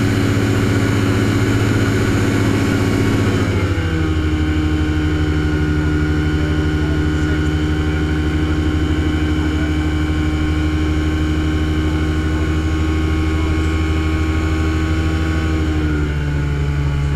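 Engine and propeller of a Typhoon TL-32 ultralight in flight, heard from the open cockpit as a steady drone. The revs drop about a third of the way in, as power is throttled back, and shift slightly again near the end.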